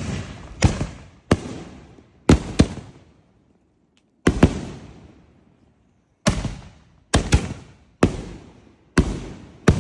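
Firework shells going off: a string of about a dozen sharp bangs, many in quick pairs, each ringing out with a long echoing tail.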